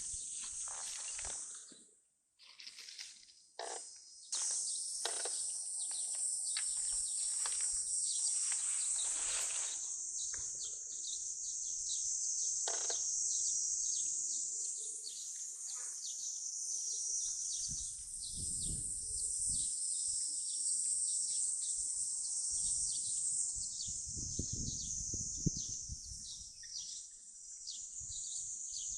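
Insects chirring steadily in a dense, high-pitched chorus of rapid pulses, briefly cutting out about two seconds in, with a low rumble twice in the second half.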